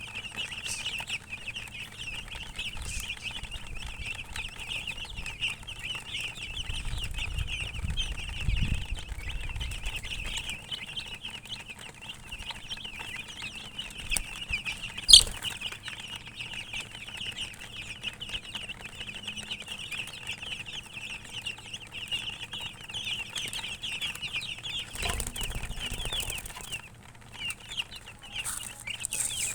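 A flock of chicks peeping continuously, many high short chirps overlapping. There is a sharp click about halfway through and a couple of low thumps.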